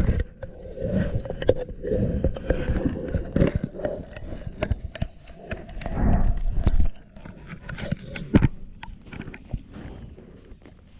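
GoPro camera being chewed and licked by a lioness, heard from inside the housing: teeth and tongue scraping, clicking and knocking on the casing, with heavy thumps that ease off after about seven seconds into lighter scattered clicks.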